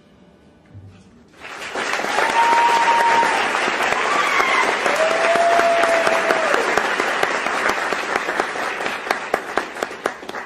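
Theatre audience applauding and cheering, with a few drawn-out whoops over the clapping. It starts about a second and a half in, thins to scattered separate claps near the end, and then stops abruptly.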